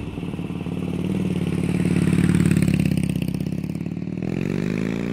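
Motorcycle engine running with a quick, even firing beat. It swells about halfway through, then revs up near the end.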